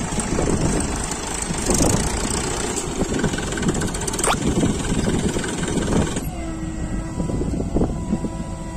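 Diesel engines of tractors and a backhoe loader running hard in a loud, rough din. About six seconds in, the noise drops abruptly and a steady tone comes in.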